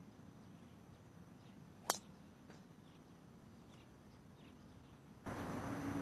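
Golf driver striking the ball off the tee: a single sharp crack about two seconds in. Near the end the sound cuts to a louder background with a steady low hum.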